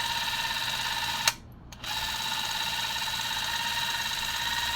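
Spring-wound clockwork drive of an Elmo 8A 8mm movie camera running while the shutter button is held: a steady high whir. It stops with a click about a second in and starts again half a second later.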